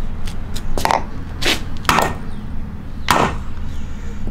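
Ball-peen hammer striking the end of a steel grade 8 bolt set in a wooden block, deliberately smashing its threads. About six sharp metal-on-metal blows come at uneven spacing, four of them loud, over a steady low hum.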